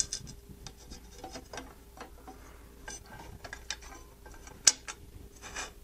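Light, irregular clicks and taps of metal parts being handled as an aluminum carriage plate is fitted to a 3D printer's bed carriage, with a sharper click about four and a half seconds in.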